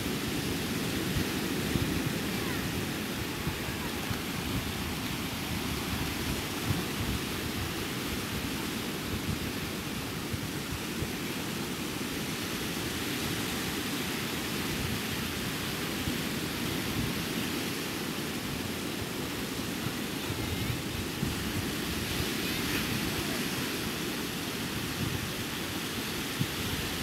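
Ocean surf breaking on the shore as a steady rush, with wind rumbling on the microphone.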